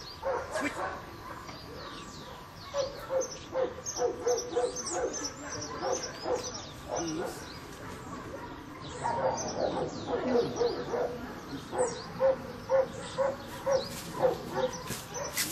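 A dog barking repeatedly in runs of short barks, with birds chirping high above it.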